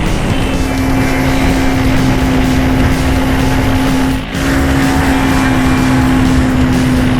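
Boat engine running steadily under way, a constant hum that dips briefly about four seconds in.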